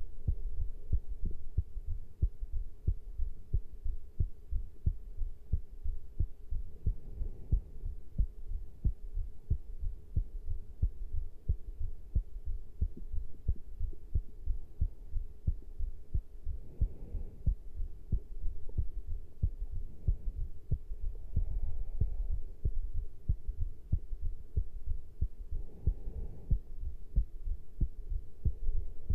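A human heartbeat picked up close to the chest, after caffeine intake: a continuous, regular run of low thumps. A faint steady hum lies under it, and a few brief rustles come through partway in.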